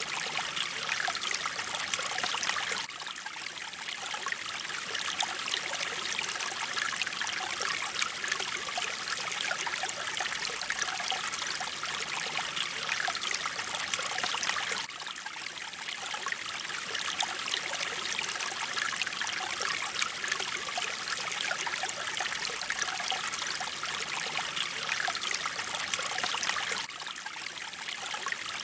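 Mountain stream water flowing and trickling steadily over rocks, with a brief dip in level about every twelve seconds.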